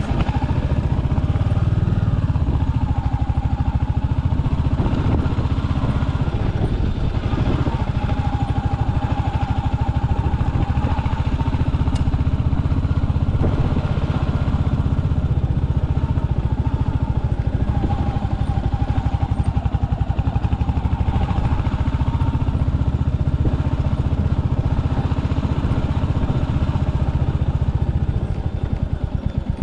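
Royal Enfield Hunter 350's single-cylinder engine running steadily while the motorcycle is ridden, its revs shifting only slightly, easing off a little near the end.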